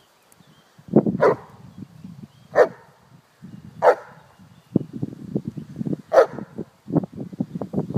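Black Russian terrier barking four times, single barks a second or more apart, over a low rustling crackle.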